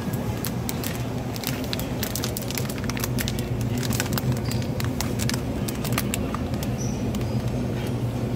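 Plastic food packaging crinkling and crackling as it is handled close by: a quick run of sharp clicks and rustles over a steady low hum.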